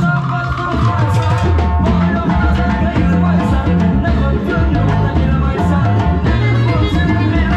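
Uzbek song performed live by a band: a man singing through a microphone over acoustic guitar, keyboard and a steady drum beat, played loud through the PA.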